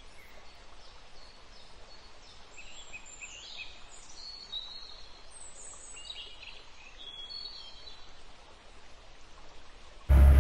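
Quiet outdoor nature ambience with scattered bird calls, a run of short high chirps and whistles through the middle. Near the end a much louder sound with heavy bass cuts in abruptly.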